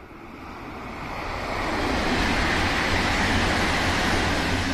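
Tohoku Shinkansen E3-series Tsubasa high-speed train passing at speed: a rushing noise with a low hum underneath that builds over the first two seconds, holds loud, and starts to fade near the end.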